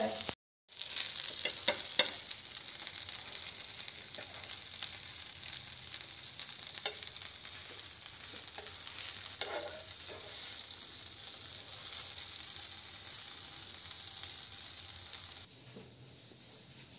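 Masala-coated fish pieces sizzling steadily as they shallow-fry in oil on a flat nonstick tawa, with a few light clicks. The sizzle cuts off near the end, leaving quiet room tone.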